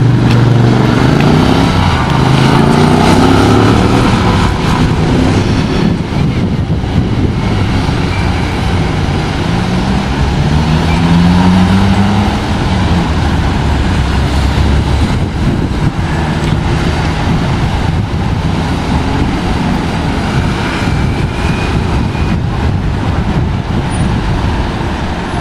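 Street traffic at a city crossing: cars and a van passing with a continuous engine and tyre rumble. Engine notes rise and then fall in pitch as vehicles pull away, once near the start and again about ten seconds in.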